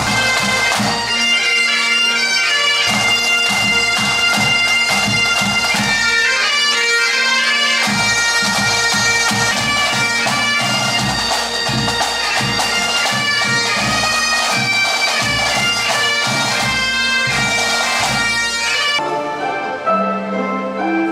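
Pipe band playing: Great Highland bagpipes sounding a tune over their steady drone, with snare and bass drums beating time. About two seconds before the end the pipes stop and softer, different music takes over.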